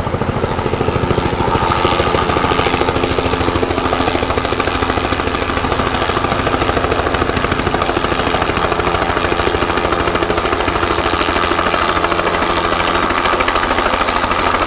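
Light helicopter hovering low and close while carrying a sling load, its rotor chopping in a rapid, steady pulse over the engine's drone.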